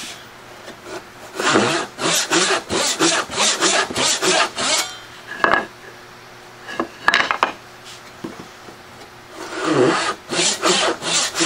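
Backsaw crosscutting the shoulder of a lap joint, with quick even strokes at about three a second. The sawing stops for a few seconds, broken by a couple of short knocks, then starts again near the end.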